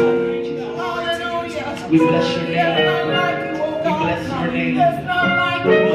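Live gospel praise-and-worship music: a male lead singer sings into a microphone, with backing vocalists and keyboard accompaniment, in long held and gliding notes.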